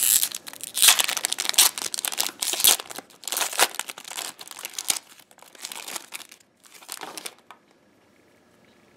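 Metallic foil wrapper of a trading card pack crinkling and tearing as it is pulled open by hand. The crackling is dense for the first few seconds, thins to scattered crackles, then falls nearly quiet near the end.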